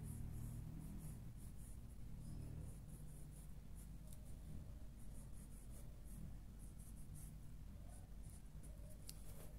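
Fine-tip marker pen scratching on drawing paper in many short, light strokes.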